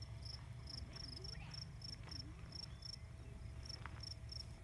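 Crickets chirping faintly, short high chirps repeating about four times a second.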